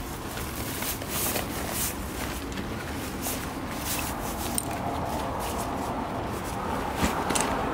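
Fabric of a roll-top backpack rustling and scraping as it is handled and its top folded, with scattered short clicks of its straps and buckles, over a steady low background noise.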